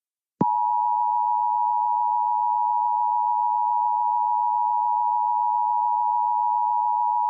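Emergency Alert System attention signal: two steady tones near 1 kHz (the standard 853 Hz and 960 Hz pair) sounding together, starting sharply about half a second in and holding unchanged. It marks the start of an emergency alert, here a severe thunderstorm warning whose voice message follows.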